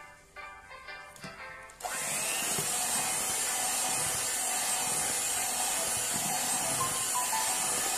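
Soft background music, then about two seconds in an electric hand mixer switches on and runs steadily, its beaters whipping egg-and-sugar cake batter in a stainless-steel bowl.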